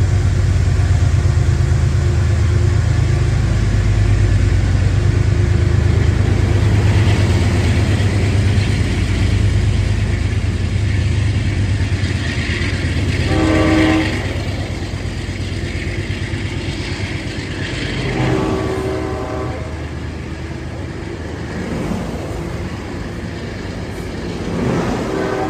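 Diesel passenger locomotive 209 running loud and low, its drone fading after about ten seconds. The locomotive's horn then sounds: a short blast about halfway through, a longer one about five seconds later, and another beginning right at the end.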